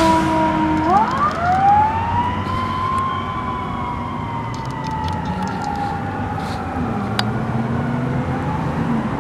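Fire engine siren wailing: a falling tone that winds back up about a second in, peaks around three seconds, then slowly falls.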